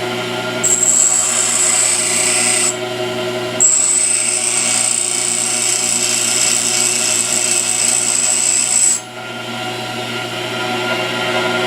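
Pedestal grinder running, with a high-speed steel lathe tool bit held by hand against the wheel twice: a high-pitched grinding hiss for about two seconds, a short break, then about five seconds more before the bit comes off the wheel and only the motor hum remains.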